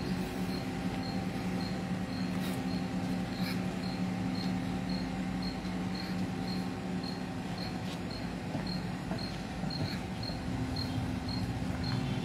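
Steady low hum with a short high-pitched chirp repeating evenly about twice a second throughout.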